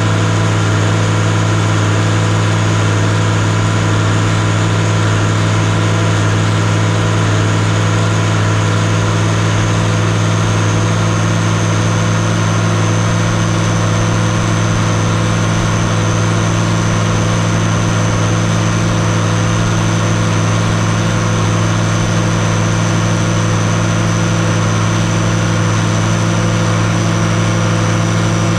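Tractor engine running steadily while pulling a square hay baler, a constant low drone with a faint high whine that drifts slowly lower.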